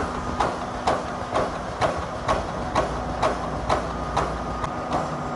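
Pneumatic chicken-cage wire mesh welding machine (DP-AW-1200E+) running at production speed: a sharp stroke about twice a second as the pneumatic electrodes clamp and spot-weld each cross wire, over a steady hum.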